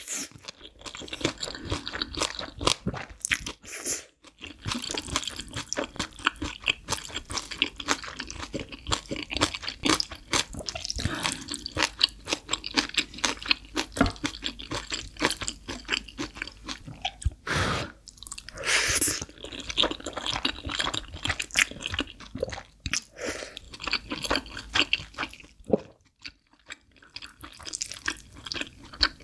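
Close-miked eating sounds: wet chewing of Chapagetti black bean noodles and crunching of green onion kimchi, a dense run of small clicks and smacks.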